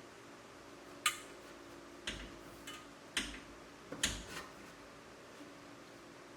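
Sharp metallic clinks and knocks, about five in four seconds, some ringing briefly, as steel exhaust parts (muffler, tailpipe and clamps) are handled and fitted together.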